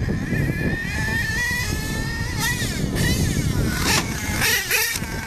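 HPI Savage nitro RC monster truck's small two-stroke glow engine running at high revs, a high whine whose pitch rises and falls several times as the throttle is worked over the jumps.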